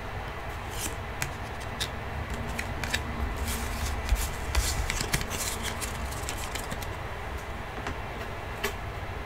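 Trading cards and card sleeves being handled on a desk playmat: scattered small clicks and rustles, over a steady low hum.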